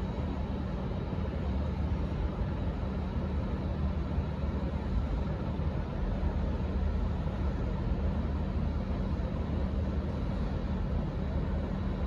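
Diesel locomotive engine idling, a steady low hum with no change in pitch.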